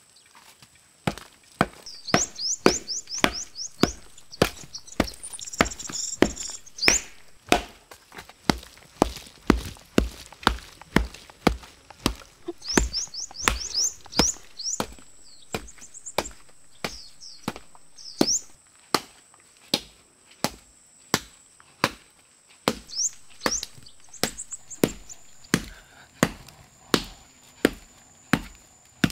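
Steady rhythmic strikes of a long-handled digging tool chopping into clay soil, about one to two blows a second. Birds chirp in short twittering spells between the blows.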